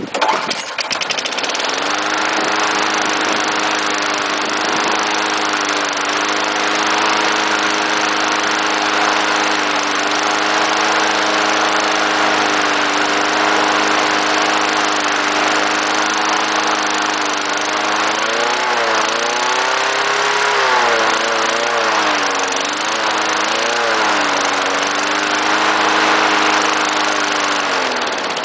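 Craftsman 4.5 Eager 1 push mower's single-cylinder four-stroke engine, just caught after a pull start, running at a steady speed. About two-thirds of the way through its speed surges up and down for several seconds, then settles again. It dies away right at the end.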